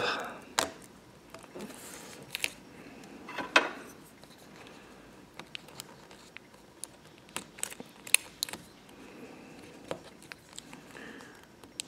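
Scattered small clicks, taps and rustles of fingers seating a laptop display cable's connector and pressing its adhesive tape down on the back of a replacement LCD panel.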